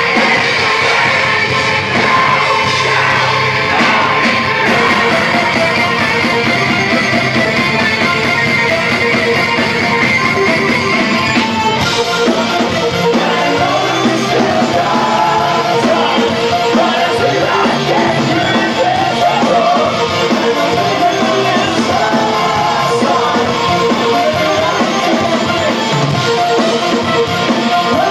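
Heavy rock band playing live and loud in a concert hall, with electric guitars, drums and sung and shouted vocals.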